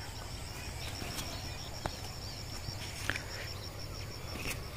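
Outdoor background with faint, scattered bird chirps over a steady high-pitched pulsing buzz and a low rumble, broken by a couple of light clicks.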